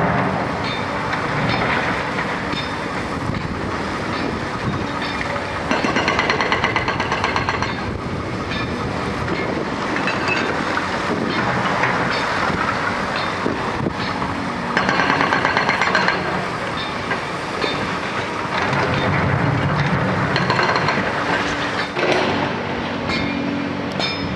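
Diesel engines of hydraulic excavators running on a demolition site, with clanking of concrete rubble and steel. There are two bursts of rapid, even hammering from the Hyundai HX220L's hydraulic breaker, about six seconds in and again about fifteen seconds in.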